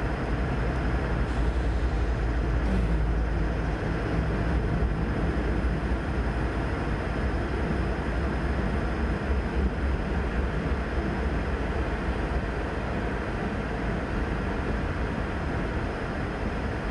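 Freight train passing close by: a diesel locomotive's engine rumble in the first few seconds, then the steady rolling noise of covered hopper cars' wheels on the rails, heard from inside a car.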